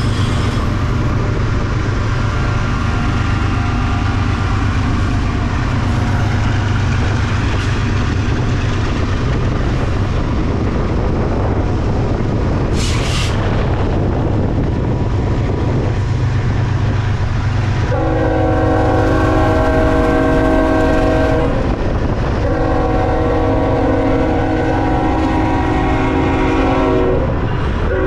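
A freight train runs at speed with a steady low rumble and a brief hiss about halfway. Then the locomotive's multi-note air horn sounds a chord of several tones at once: one long blast, a short break, and a second, longer blast near the end.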